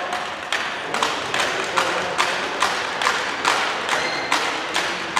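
Spectators clapping in unison in a steady rhythm, about two and a half claps a second, each clap echoing off the sports-hall walls.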